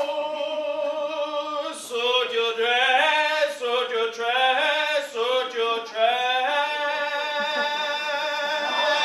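Singing: a melodic line sung loudly, quicker notes in the middle and long held notes toward the end.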